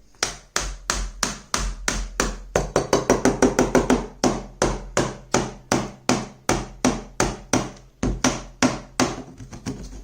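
Rapid, regular hammer blows on a 2015 Lenovo tablet, about three or four a second, being smashed to break it apart; the strikes get a little weaker near the end.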